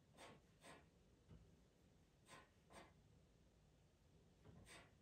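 Faint, short scratchy strokes of a pastel pencil on Pastelmat paper, five in all, coming in quick pairs about every two seconds.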